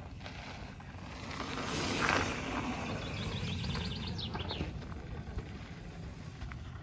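Mountain bike passing close on a gravel trail, its tyre noise swelling to a peak about two seconds in and then fading. Birds chirp briefly a second or two later.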